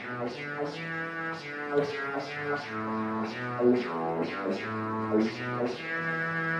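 House music in a DJ mix: a droning synth line steps between held low notes under regular sharp percussion hits, about two or three a second. Near the end the percussion drops out, leaving one sustained chord.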